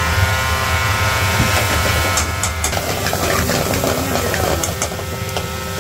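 Steady mechanical hum and hiss of a commercial kitchen's burners and machinery, with light metallic clicks and scrapes from about a second and a half in as a ladle stirs curry in a metal pan.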